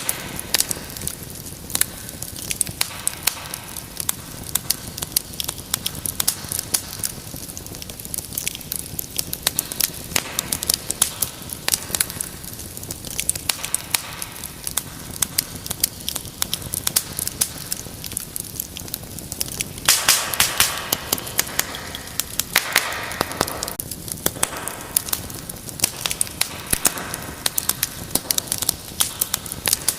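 Wood fire crackling in a fireplace: a steady stream of sharp pops and snaps over a soft hiss. There is a denser burst of crackling about twenty seconds in, followed by a brief hiss.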